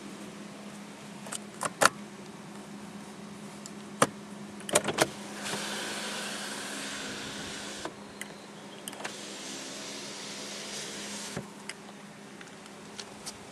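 Small electric motor of the car running in two stretches, about two and a half seconds and then about three and a half seconds, after several sharp clicks.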